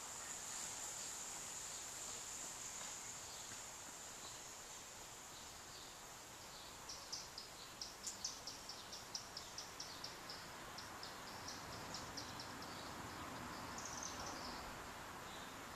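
Outdoor ambience with a steady high insect drone, then from about halfway a run of quick, high bird chirps, several a second, some louder than others.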